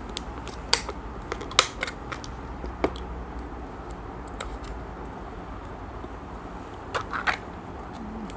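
A small plastic yogurt cup being opened by hand: its snap-on plastic cap comes off and the foil seal is peeled back. Sharp plastic clicks and crinkles come in a cluster in the first few seconds and a pair about seven seconds in.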